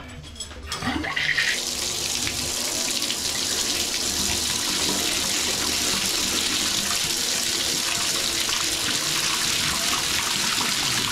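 Water running from a bathtub spout into the tub, turned on at a freshly rebuilt three-handle tub/shower valve: a steady rush that builds over the first second or two, then holds.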